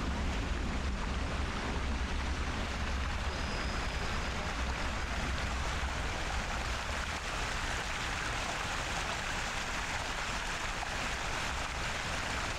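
Fountain jets splashing into a stone basin: a steady rush of water, with a low rumble underneath that weakens about halfway through.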